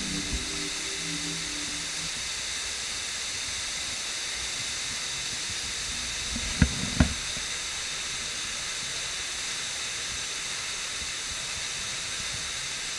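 Steady, even hiss throughout, with two short thumps close together about halfway through.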